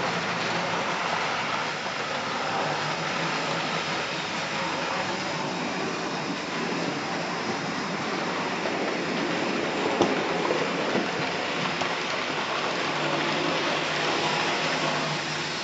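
Model railway trains running on a layout: a steady whirring rumble of small electric motors and wheels rolling on the track, with one sharp click about ten seconds in.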